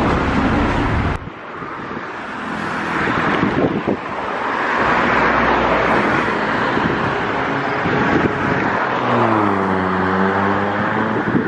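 Road traffic with vehicles passing close by; their noise swells in the middle. Near the end an engine note dips in pitch and rises again.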